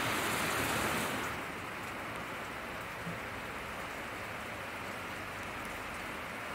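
A steady, even hiss without pitch or rhythm, a little louder for about the first second before settling.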